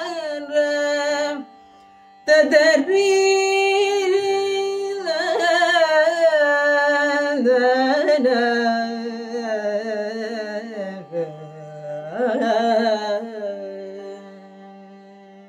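Female voice singing a wordless Carnatic alapana in raga Sindhu Bhairavi, long gliding held notes in phrases with a brief break between them, over a steady drone. The voice fades near the end, leaving the drone.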